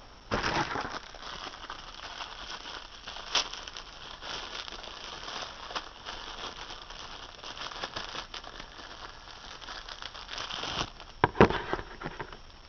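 Packaging crinkling and rustling as a pair of speaker tweeters is unwrapped by hand, with scattered crackles and a few louder crumples.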